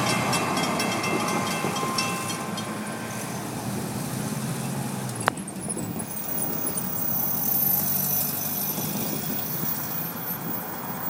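Grade-crossing warning bell ringing rapidly while a pickup truck's engine drives over the crossing; the bell stops about two and a half seconds in. A sharp click comes about five seconds in, and after it a low steady rumble goes on.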